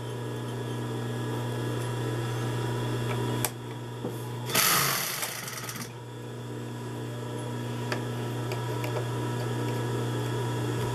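Consew 206RB industrial sewing machine with its motor running, a steady hum. There is a sharp click about three and a half seconds in, then a rushing noise lasting just over a second, while the bobbin winder is being adjusted to wind more thread before it trips off.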